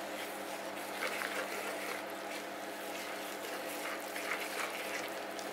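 Wooden spatula stirring flour and water into a wet, shaggy bread dough in a mixing bowl: soft, irregular scraping and squelching over a steady low hum.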